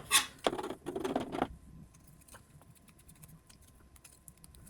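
Small bolts and nuts being handled and screwed finger-tight into a robot's plastic plate: a few scraping, rustling handling sounds in the first second and a half, then faint scattered small clicks.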